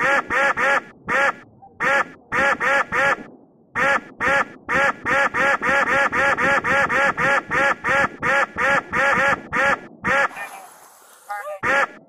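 A rapid string of cartoon duck-quack sound effects dubbed over police gunfire, one quack per shot, about three to four a second with a few short breaks. The quacks stop for a moment near the end, then one more follows.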